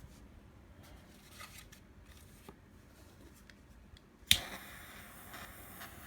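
Triple-jet butane torch lighter: a few faint handling clicks, then about four seconds in a sharp ignition click and the steady hiss of the jet flames burning.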